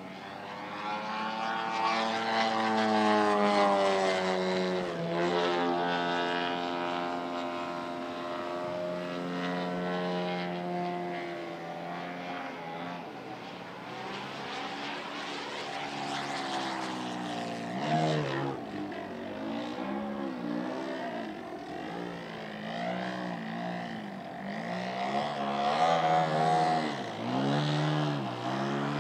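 Large radio-controlled aerobatic model airplane's engine and propeller running through a flying display. The pitch swells and sags with the throttle. In the second half it swoops up and down in quick arcs, about once a second.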